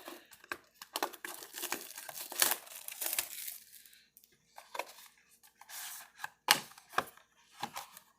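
Trading card box packaging being torn open: a run of crinkling and tearing of the wrapper, then a few sharp knocks as the box is handled.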